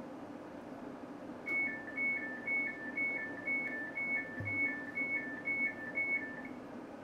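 Two-tone door warning beeps of a Class 730 electric train, a high and a low tone alternating about twice a second for some five seconds, as the doors are released at a station stop. A steady low hum of the carriage runs underneath.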